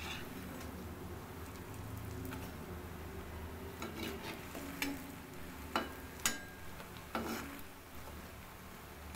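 Medu vada deep-frying in hot oil, sizzling steadily, while a perforated metal slotted spoon turns them over, scraping and clicking against the kadai several times in the second half.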